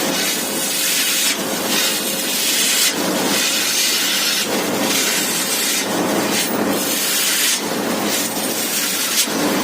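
A high-pressure flushing jet hisses steadily and loudly into a McQuay outdoor AC unit. Its tone shifts every second or so as the jet moves.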